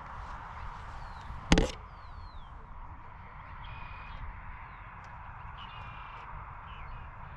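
A single loud, sharp knock about one and a half seconds in, over steady outdoor background noise. Short, falling bird chirps repeat throughout, with a couple of brief buzzy calls.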